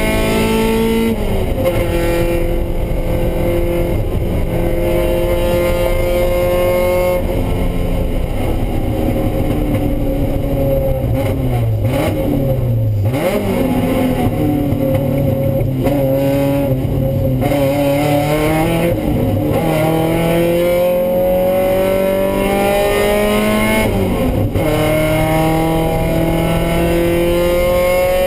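Race car engine heard from inside the cockpit, climbing in pitch through the gears with a drop at an upshift about a second in. Around the middle it falls away under braking with quick downshift blips, then pulls up through the gears again, with another upshift a few seconds before the end. A steady hiss of rain and tyre spray from the wet track runs underneath.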